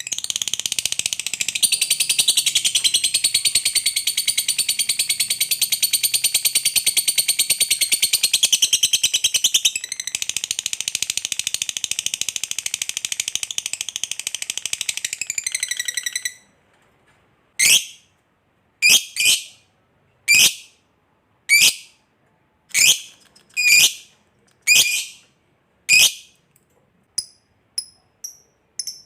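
Lovebird chattering in one long, very rapid, shrill trill (the 'ngekek panjang' long chatter) for about sixteen seconds. It then breaks into a series of separate sharp calls about a second apart, ending in short faint chips.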